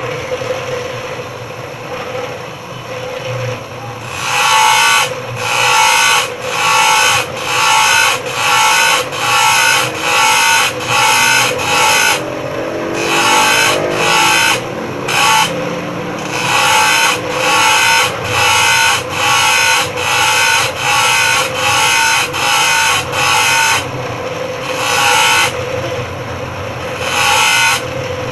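Bench grinder motor running steadily while a steel saw blade is pressed against the wheel in short, repeated grinding strokes, about one and a half a second, cutting the saw's teeth one after another. The strokes start a few seconds in and pause briefly twice.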